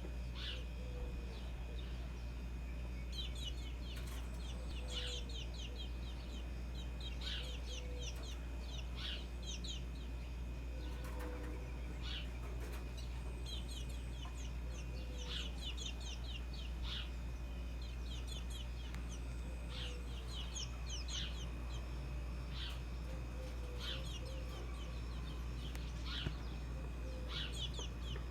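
Birds chirping in short, quick clusters every second or two, with occasional soft low calls, over a steady low hum.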